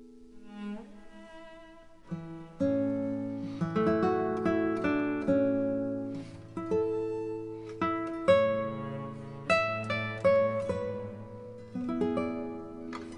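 Background music: a plucked acoustic guitar playing a gentle melody. It starts softly with a sliding note and becomes fuller and busier about two and a half seconds in.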